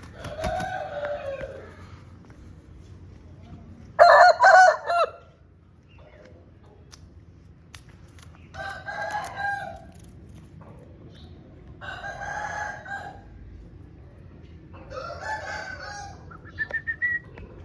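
Aseel game-fowl roosters crowing: five crows about three to four seconds apart, the second, about four seconds in, the loudest.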